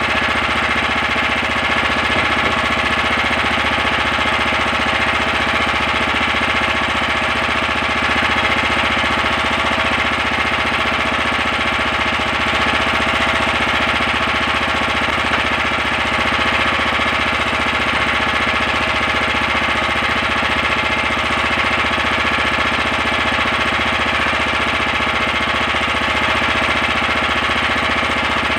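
Small engine of a motorized fishing boat running steadily, a fast, even chugging that holds at one speed throughout.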